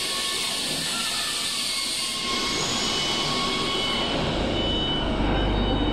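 Robotic welding machine and its positioner running: a steady hiss with a few faint steady tones, which thins about two seconds in, then a low rumble that builds from about four seconds.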